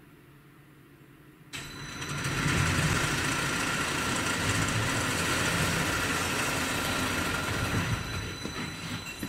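Machinery of an automated multi-storey car park running as its steel lift and pallet gear move: it starts abruptly about a second and a half in, then runs as a steady motor rumble with a high whine over it, easing off near the end.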